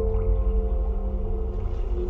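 Slow ambient background music of long held notes, one note changing right at the start.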